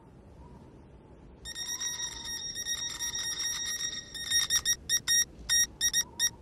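A cartoon sound effect of high electronic beeps. A fast string of short beeps starts about a second and a half in, then about ten louder, separate beeps follow from about four seconds in.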